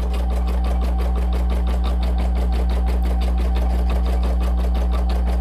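Brother PE770 single-needle embroidery machine stitching out a design, a rapid, even rhythm of needle strokes over a steady motor hum.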